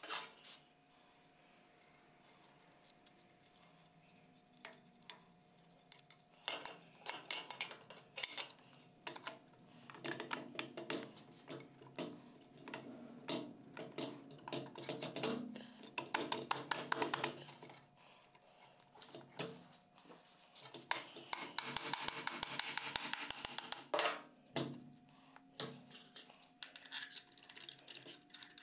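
Metal clinks, scrapes and clicks as a hand tool works the end bell of a small Dayton three-phase induction motor, and the cast end bell is fitted against the motor housing on a steel bench. There are scattered knocks, dense stretches of clicking, and a run of rapid clicks a little past the two-thirds mark.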